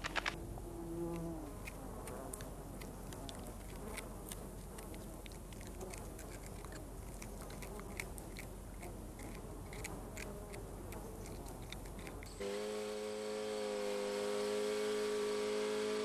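Fly buzzing, with scattered faint ticks. About twelve seconds in, this cuts to a steady humming drone of several held tones.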